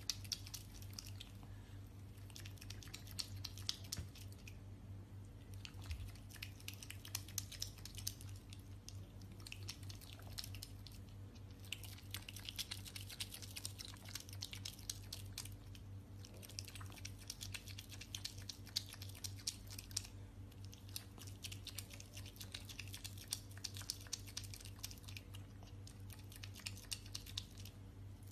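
A pet chewing and crunching its food in rapid, clicky runs, broken by short pauses every few seconds. A steady low hum sits underneath.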